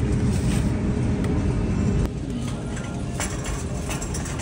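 Steady low rumble of a grocery store. About two seconds in it drops abruptly to a quieter rumble with several light clicks and rattles from a wire shopping cart.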